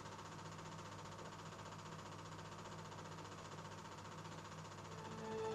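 Faint, steady mechanical hum with hiss and a fine fast flutter. Soft music starts to come in near the end.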